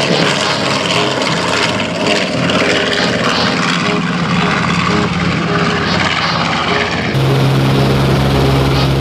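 Twin Wright R-2600 radial engines of a B-25 Mitchell bomber running at takeoff power as it climbs out, a loud dense sound. About seven seconds in it switches abruptly to a steadier, lower engine drone heard inside the cabin.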